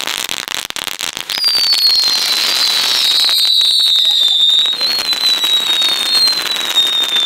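Category 1 ground firework burning with dense crackling, then about a second in a loud shrill whistle starts and holds for about six seconds, slowly dropping in pitch over the continuing crackle. The concrete skate bowl around it makes it ring.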